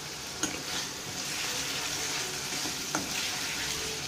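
Masala paste sizzling in hot mustard oil in a kadai as a spatula stirs it through, a steady frying hiss. Sautéing of onion, tomato, ginger, garlic and dried chilli paste, with two sharp clicks of the spatula against the pan, about half a second in and near three seconds.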